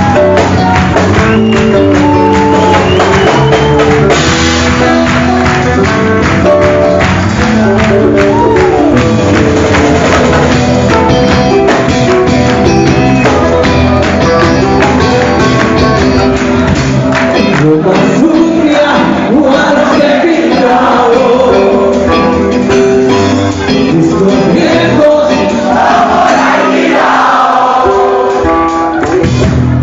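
Live rock band playing a song with a lead singer, heard as a loud concert recording from the hall. About halfway through, the drums and bass drop back and leave a sparser passage under the voice.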